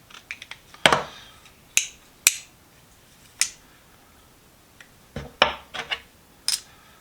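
Metal hand tools being handled and fitted together: a series of sharp, separate clicks and clinks of metal on metal, with a quick run of several about five seconds in.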